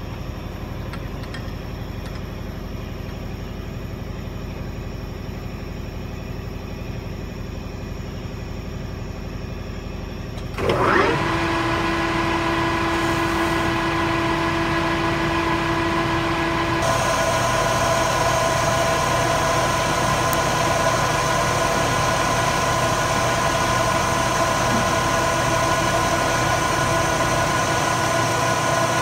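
Metal lathe running, turning a steel bar with a carbide insert tool. About ten seconds in it gets suddenly louder, with a steady whine added on top of the running hum, and about six seconds later more hiss joins it.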